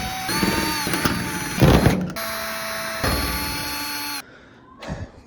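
Power drill/driver backing out Phillips head screws, its motor whining in two runs: a longer one with a louder burst near its end, then after a short pause a second run of about a second.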